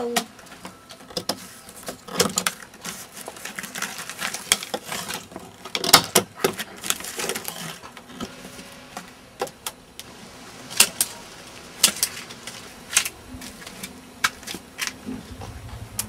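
Scissors snipping through plastic packaging strips: a series of irregular sharp clicks.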